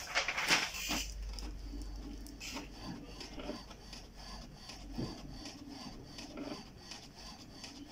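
Paper sheets rustling as they are handled in the first second, then plastic wrap around a printer crinkling and rubbing under a hand.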